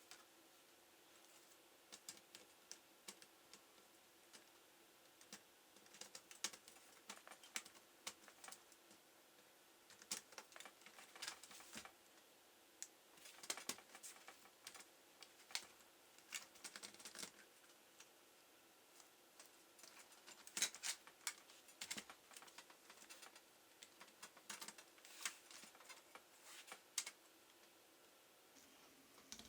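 Faint, irregular clicks and taps of hands working on a laptop, coming in short clusters with quiet gaps between them.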